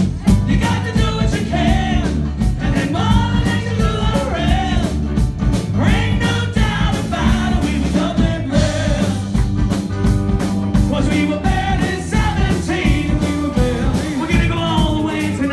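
Live rock-and-roll band playing with a lead singer: a steady drum beat, bass and vocals, loud throughout.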